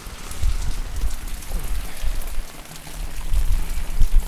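Wind buffeting the microphone outdoors: a low rumble that swells and fades in gusts over a steady hiss, with faint road traffic in the background.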